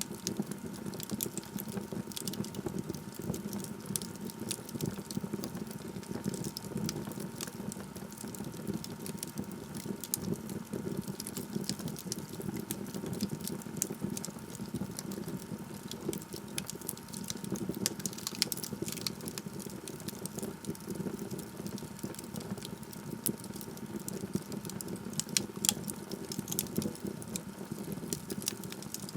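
Wood fire in a fireplace crackling, with frequent sharp pops over a steady low hiss of the flames.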